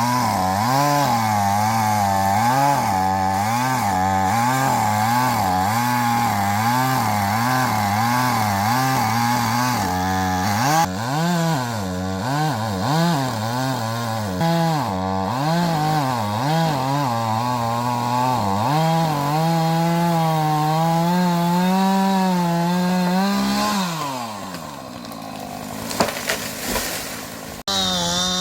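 Gasoline chainsaw cutting into a large oak trunk, its engine pitch rising and falling as the chain bites under load. Near the end the engine drops toward idle for a couple of seconds, then suddenly returns to high revs.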